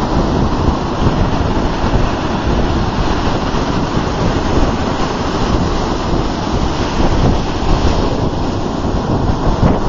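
Ocean surf breaking and washing up the beach in a steady rush, with wind buffeting the microphone in a low rumble.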